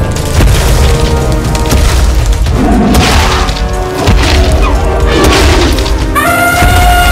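Dramatic background music with heavy booming low drums and crashing impact effects. Near the end, a loud high call cuts in and falls in pitch.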